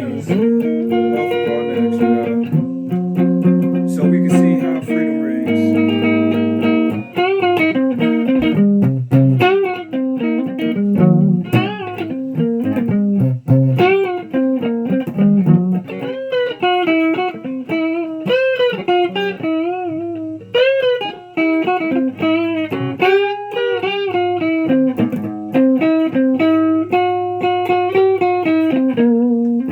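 Electric guitar being played: held chords for the first several seconds, then a long run of single notes bent and shaken with vibrato.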